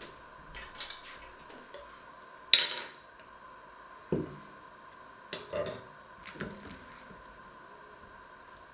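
A glass jam jar, a small dish, a spoon and a knife being set down and picked up on a wooden worktop: scattered knocks and clinks, the sharpest about two and a half seconds in.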